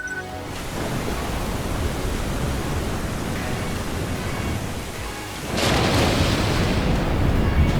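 Loud rushing noise with a deep rumble underneath, like a storm or surf effect in a film soundtrack, swelling suddenly louder about five and a half seconds in.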